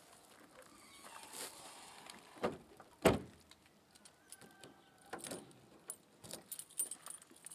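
The boot lid of a Dacia Logan sedan slammed shut with a loud thud about three seconds in, just after a smaller knock. Then a bunch of keys jangling and clicking at the boot lock as it is locked.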